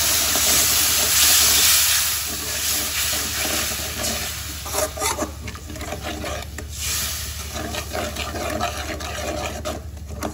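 Water added to hot fried onions and masala in a steel kadai sizzles loudly, the hiss dying down after two or three seconds. Then a steel ladle stirs the wet mixture, knocking and scraping against the pan.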